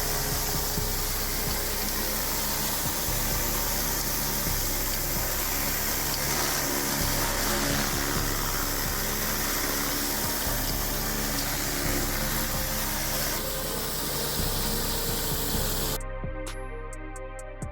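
Pressure washer spraying water onto a concrete driveway, a steady rush of spray under background music; near the end the spray cuts off suddenly, leaving only the music.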